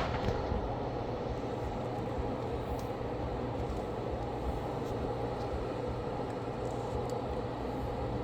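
A fan running with a steady whir and a low hum underneath, unchanging throughout.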